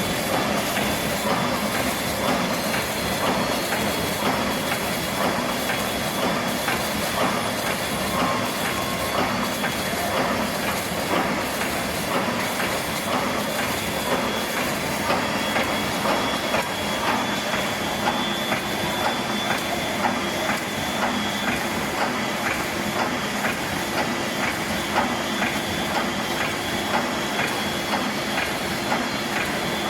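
Automatic wire mesh welding machine running, a steady mechanical clatter with regular knocks roughly once a second over a constant hiss.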